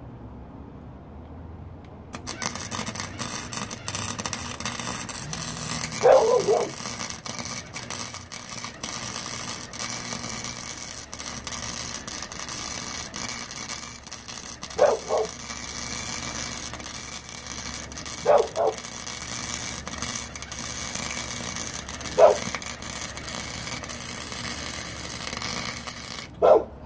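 A Chicago Electric 125 amp flux-core welder's arc crackling and sputtering as it lays a bead on rusty scrap steel at the lowest wire-speed setting, with what the welder calls a bad ground. The arc strikes about two seconds in and cuts off just before the end. Four short pitched calls cut through it.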